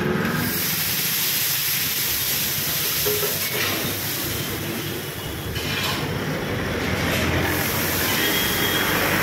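Water sizzling into steam on a hot flat dosa griddle while a stick broom scrapes across the iron surface, a steady hiss throughout.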